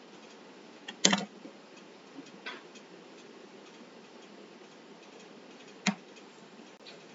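A few light clicks and taps of small thin wooden craft pieces being handled and pressed together on a tabletop: a sharp click about a second in, a fainter tap a little later, and another sharp click near the end, over a faint steady hiss.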